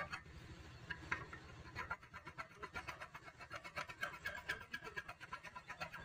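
Thin flat file rasping back and forth along the cut edge of an aluminium window profile's slot, a quick run of short scraping strokes, several a second.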